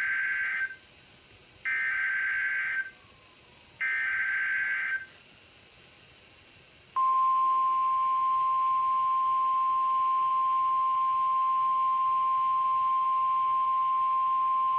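Emergency Alert System SAME header on NOAA Weather Radio: three short bursts of digital data about two seconds apart. About seven seconds in, the steady 1050 Hz warning alarm tone starts, marking a warning that is about to be broadcast.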